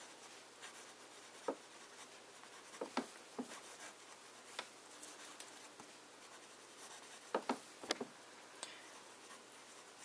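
Broad-nib fountain pen writing cursive on paper: faint scratching of the nib with a scattering of short sharp ticks as strokes start and end.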